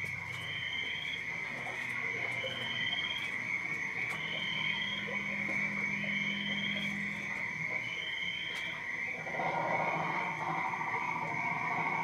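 A night-time animal chorus: a steady high drone with a short, slightly rising chirp repeating about every two seconds, joined by a denser, lower chatter about nine seconds in.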